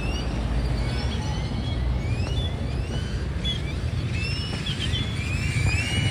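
Great-tailed grackles calling: many overlapping short, rising whistles and squeaky notes from several birds, over a steady low rumble.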